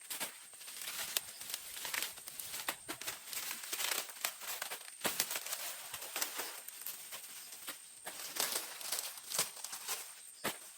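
Dry corn leaves and husks rustling and crackling as the plants are handled, with many sharp snaps and clicks scattered throughout.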